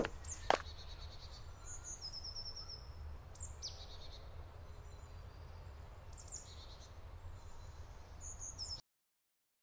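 Woodland birds singing and calling with short high chirps and trills over a low steady rumble, with one sharp click about half a second in. The sound cuts off abruptly near the end.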